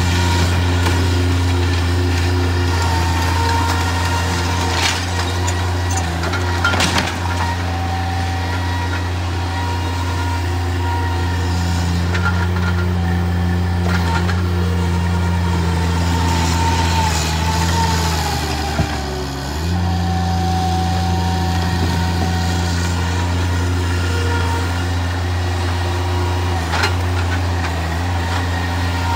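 Bobcat MT100 stand-on mini track loader's diesel engine running steadily, with a few sharp knocks of debris. The engine note dips briefly and recovers a little past two-thirds of the way through.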